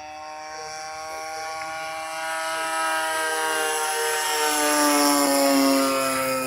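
Engine and propeller of a large radio-controlled model airplane flying past: a steady drone that grows louder to a peak about five seconds in, its pitch sliding slowly down as it goes by.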